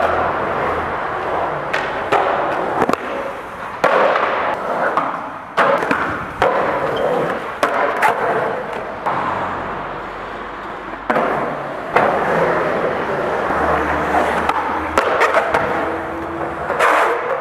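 Skateboard wheels rolling on hard ground, with a series of sharp wooden clacks as the board hits the ground during tricks, spaced irregularly a second or two apart.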